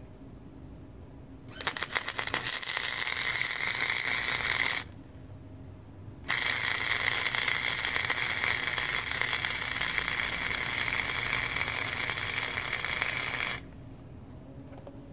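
Wire-feed welder arc crackling steadily as it welds steel angle iron: a bead of about three seconds, a short pause, then a longer bead of about seven seconds.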